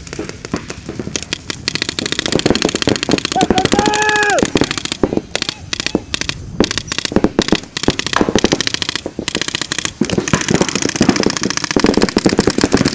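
Paintball markers firing rapid strings of shots, several players at once, in dense irregular volleys. A short shouted call rises and falls about four seconds in.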